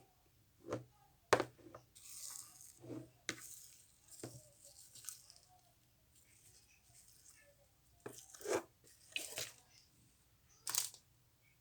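Slime being squeezed, poked and pulled apart by hand, giving short sticky pops and tearing crackles at irregular intervals; a sharp click about a second in is the loudest.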